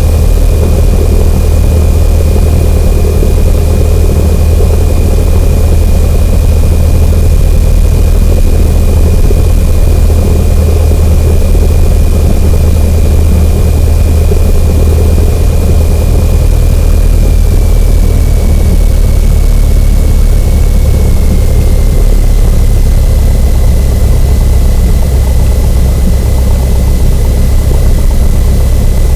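Cessna 172N's four-cylinder Lycoming O-320 engine and propeller running at taxi power, a steady low drone with a thin high whine over it that drops slightly in pitch about two-thirds of the way through.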